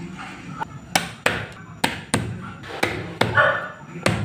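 Kitchen knife knocking against a bamboo cutting board as garlic cloves are cut: about seven sharp knocks at uneven intervals, starting about a second in.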